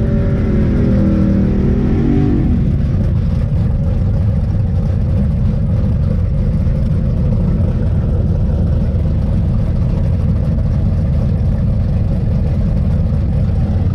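Big-block V8 engine of a Plymouth Satellite drag car running loudly at idle, with a brief shift in pitch in the first couple of seconds and then a steady, unchanging run.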